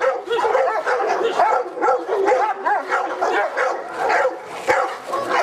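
Presa Canario barking rapidly and excitedly, several barks a second, while lunging on the leash at a decoy in protection work.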